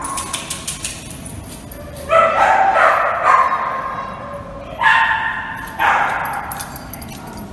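A dog barking: a drawn-out run of barks about two seconds in, then two shorter barks about a second apart.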